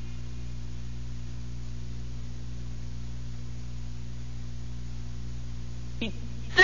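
Steady low electrical mains hum from the microphone and sound system, heard in a pause between recited phrases. About six seconds in there is a brief sound whose pitch falls.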